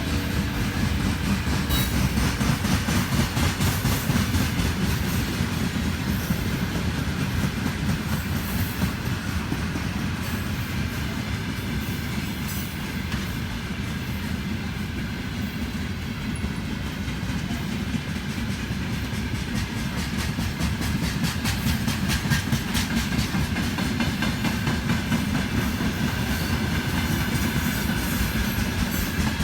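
A train passing close by, its wheels clattering steadily over the rail joints.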